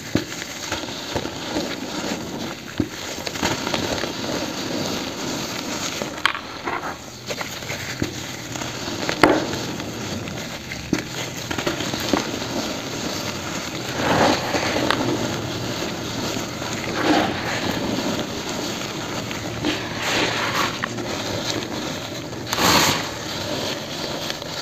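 Dry pure cement chunks crushed and crumbled between gloved hands: a continuous gritty crackle of breaking crumbs, with sharp snaps and louder crunches every few seconds as bigger pieces give way.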